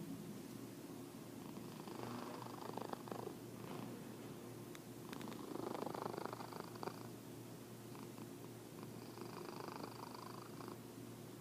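Fat orange tabby cat asleep, snoring and purring: a steady low rumble that swells with each breath, about every three to four seconds.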